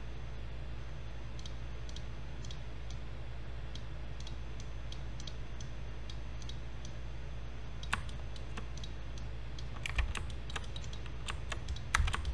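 Computer mouse and keyboard clicks: scattered single clicks at first, then a quicker run of louder clicks in the last few seconds, over a steady low hum.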